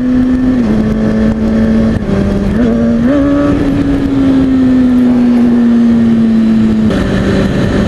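Sport motorcycle engine running on the road with steady wind rush on the helmet camera. The engine note steps down sharply about a second in, again at about two seconds and near the end, as the rider shifts gears by easing off the throttle with a light touch of clutch; it climbs briefly around three seconds.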